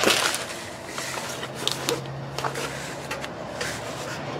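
A large diamond-painting canvas with its clear plastic cover being handled and laid flat on a table: a loud rustle of the sheet at the start, then scattered light crinkles and taps as it settles.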